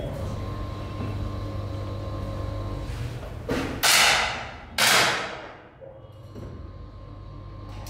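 Two 10 m air pistol shots about a second apart, each a sharp crack that rings out with a hiss for most of a second, after a steady low hum.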